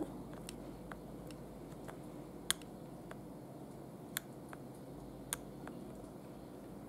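Small, faint clicks of metal tweezers picking at rhinestones inside a plastic rhinestone wheel, with three sharper ticks among them, over quiet room tone.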